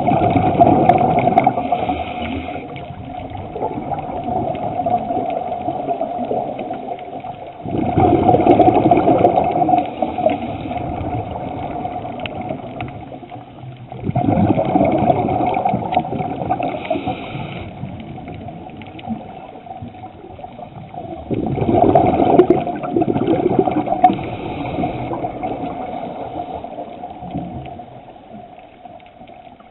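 Scuba diver breathing through a regulator underwater: a loud rush of exhaled bubbles comes about every seven seconds, four times, with quieter stretches between and a steady hum underneath.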